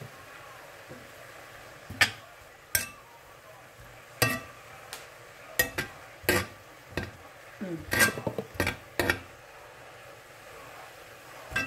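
Metal spoon stirring chopped greens in a black cast-iron pan, clinking and scraping against the pan about a dozen times at irregular intervals, with a quick run of strikes just past the middle.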